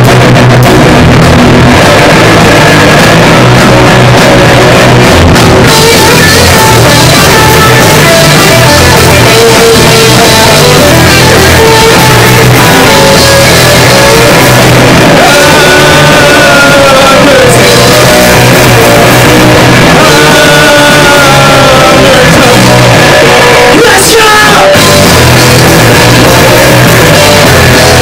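Live rock band playing loud, with electric guitar, bass guitar and drum kit.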